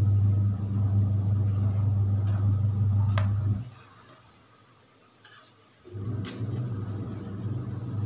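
A loud, steady low hum that cuts out about three and a half seconds in and comes back near six seconds. A couple of light metallic clinks from a kitchen utensil against an aluminium saucepan come around three and six seconds.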